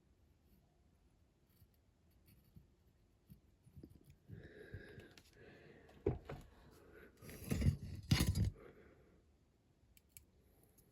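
Small parts and tools handled on a workbench: a few light clicks, then a busier stretch of clicking and rustling handling noise from about four seconds in, loudest around eight seconds.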